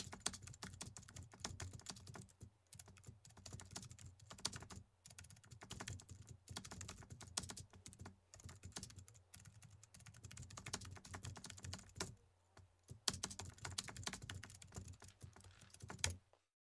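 Typing on a computer keyboard: quick runs of key clicks broken by a few short pauses, stopping suddenly near the end.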